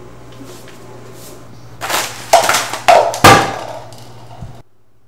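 Four loud thumps on a large, thick hardcover book between about two and three and a half seconds in, over a steady low hum that cuts off suddenly near the end.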